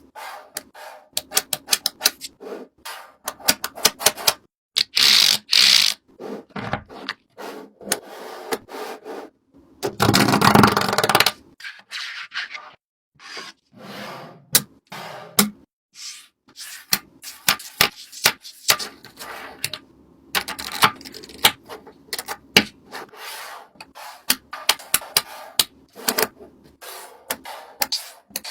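Hands working craft materials: a long run of irregular clicks and taps, with rubbing and scraping between them and a louder rustling burst about ten seconds in.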